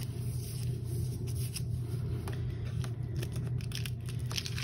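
Hands pressing and rubbing a plastic bubble mailer face down onto a painted paper page, giving soft irregular crinkling and scraping over a steady low hum.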